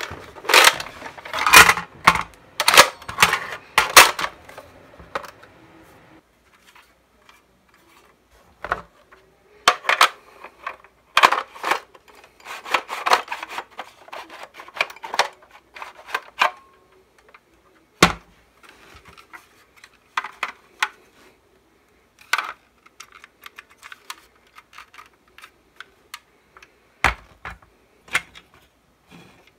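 Hard plastic parts of a Nerf Recon CS-6 blaster being handled and fitted together: clicks, taps and rubbing of plastic. The sounds come in busy clusters with a quiet stretch between them, and single sharp knocks near the end.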